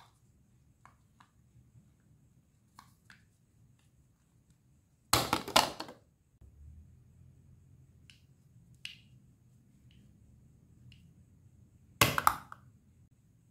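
Hollow plastic toy fruit and vegetable pieces clattering as they are set down among other plastic toys in a cardboard box, twice: a longer rattle about five seconds in and a shorter one about twelve seconds in. Faint clicks of the pieces being handled come in between.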